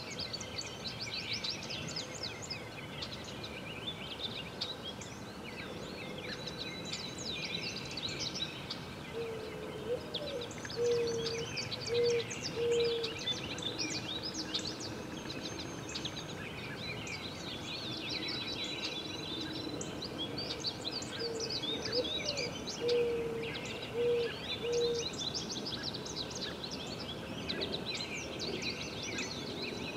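Outdoor birdsong: many small birds chirping and singing in quick high notes throughout, and twice a low cooing call of about five notes, the loudest sound.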